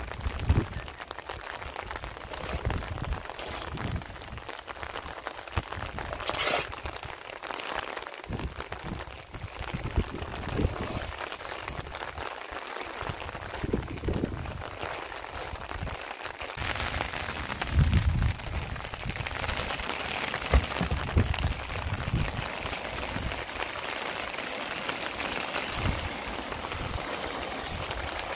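Rain falling in a steady hiss, with irregular low thumps and rumbles underneath.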